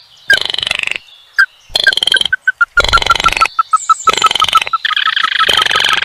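Baillon's crake giving its hard rattling call: a couple of short bursts, then from about two seconds in a fast, steady series of short notes.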